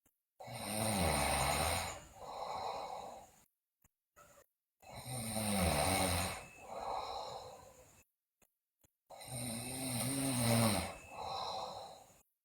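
A sleeping girl snoring loudly: three breath cycles, each a long, louder snore followed by a shorter, quieter one, with silent gaps between them.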